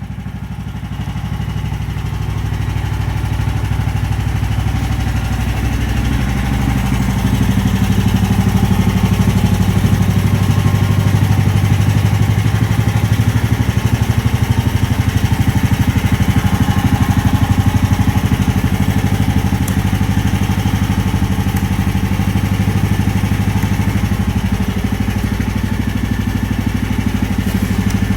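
Briggs & Stratton 13.5 HP petrol engine of a Rippa R10 mini excavator running steadily, growing louder over the first several seconds and then holding.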